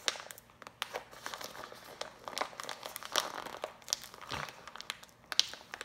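A sealed snack bag crinkling and crackling in irregular bursts as it is gripped at the top and pulled hard from both sides, the seal not yet giving way.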